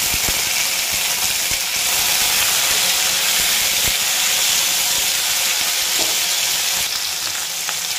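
Chopped tomatoes, garlic and green chillies sizzling steadily in hot oil in a non-stick pan as they are stirred with a silicone spatula, with a few light knocks of the spatula against the pan.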